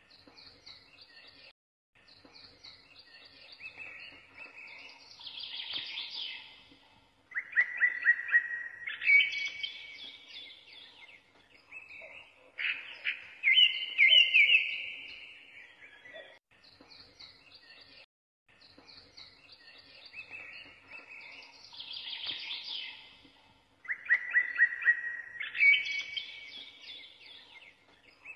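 Birds chirping and trilling in a recorded birdsong loop; the same phrases come round again about every 16 to 17 seconds.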